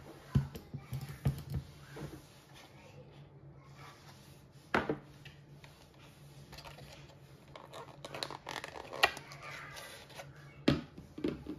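Hands handling a plastic wireless mouse and its clear plastic packaging insert: scattered clicks, taps and light plastic knocks, the loudest about 5 seconds in and again near the end.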